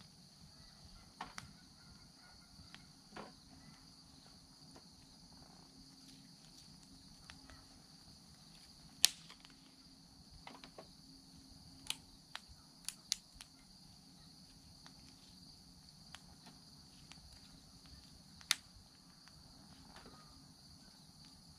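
Small fire of sticks and twigs crackling in a collapsible steel firepit: irregular sharp pops and snaps, the loudest about nine seconds in and again near the end, over a steady high drone.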